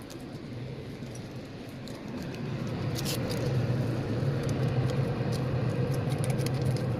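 Motor vehicle running with a steady engine hum that builds over the first few seconds and then holds, with scattered faint clicks and rattles.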